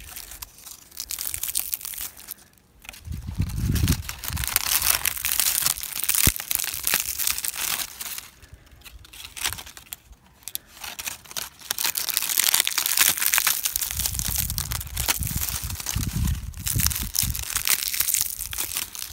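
Dry dead leaves crinkling and crackling as a hand crumples them on the branch, close to a phone microphone. The crackling comes in bursts with two short lulls, and there are a few low rumbles.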